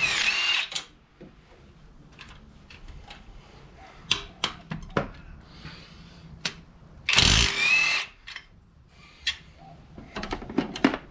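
Cordless power tool on the engine-mount bolts of a Honda Civic, run in two short bursts of about a second each. One comes right at the start and one about seven seconds in, with a thin whine in each. Light sharp clicks come between the bursts.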